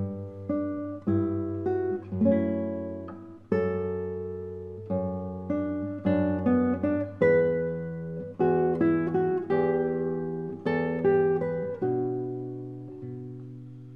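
Classical guitar played solo fingerstyle: a slow adagio of plucked notes and chords on nylon strings, each note ringing and decaying before the next.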